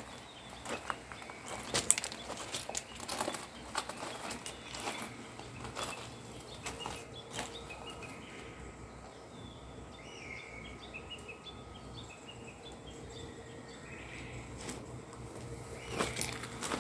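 Small birds chirping in the background, most clearly in the second half. Over them runs a scatter of sharp clicks and knocks, thickest in the first half.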